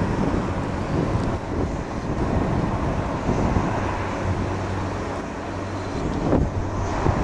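Distant, steady rumble of a Boeing 737-800's CFM56 jet engines on final approach, with wind buffeting the microphone.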